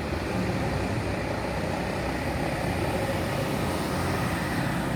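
Large tour bus's diesel engine running steadily as a continuous low rumble.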